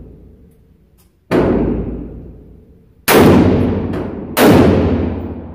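Three rifle shots from an AR-style rifle in an indoor range, each with a long echoing decay. The first comes about a second in, and the other two come closer together in the second half.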